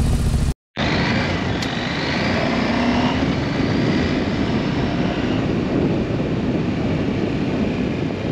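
Adventure motorcycle riding along a gravel road: the engine running under a steady rush of wind noise. The sound cuts out briefly about half a second in.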